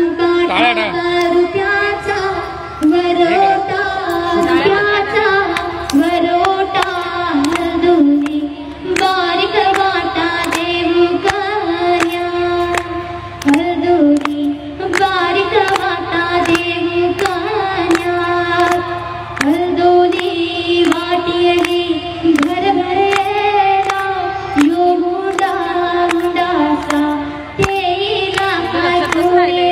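Music of a traditional Agri-Koli dhavla wedding song: a melody sung in held, sliding notes over a steady clicking beat.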